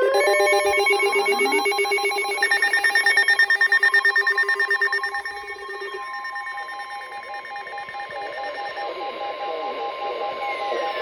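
Several electronic emergency-alert tones sounding together: steady tones overlapping, with short rising sweeps in the first couple of seconds and a loud, rapidly pulsing beep that stops about five seconds in, leaving steady tones over a hiss.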